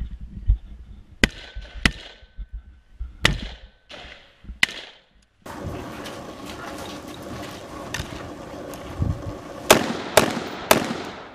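M16-pattern rifle fired in single shots on an outdoor range: four shots about a second apart in the first half, then three quicker shots about half a second apart near the end.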